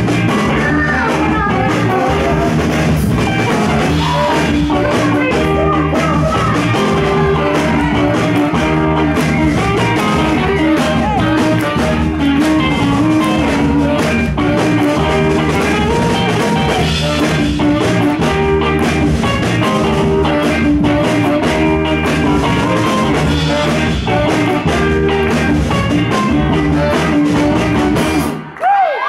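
Live rhythm-and-blues band playing electric guitars, bass and drums, with the singer's voice at times. The music cuts off suddenly near the end as the song stops on its final hit.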